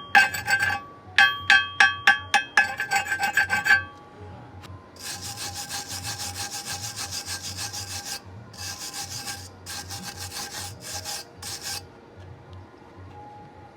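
Hammer blows on welded steel angle iron, quick and ringing, about four or five a second for the first few seconds, as when slag is chipped off a stick weld. Then a wire brush scrubs over the weld in strokes, a long one and then several short ones, before it quietens near the end.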